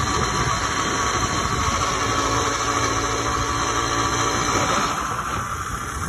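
Small two-stroke bicycle engine kit running on a motorized bicycle under way, a steady engine noise that eases off slightly about five seconds in.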